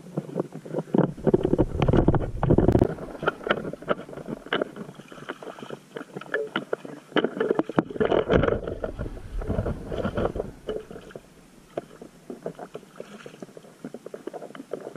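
Kayak paddle strokes splashing and dripping in shallow water, with low rumbles of wind on the microphone about a second in and again around eight seconds. The splashing is quieter after about eleven seconds.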